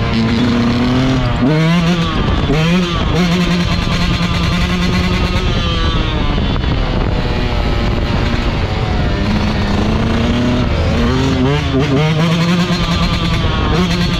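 2024 Yamaha YZ125's 125cc two-stroke single-cylinder engine revving hard under way, with quick rises in pitch about two seconds in and again near the end, steadier between.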